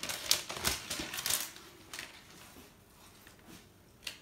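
Crinkling rustles and light clicks of something being handled, packed into the first second and a half, then faint room tone with one more click near the end.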